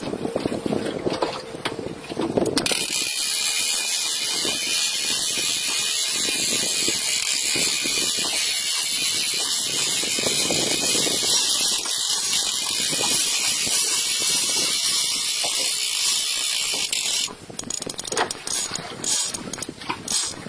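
Spinning reel's drag buzzing steadily as a hooked fish pulls line off against the bent rod, starting a few seconds in and cutting off a few seconds before the end. Scattered clicks come before and after the buzz.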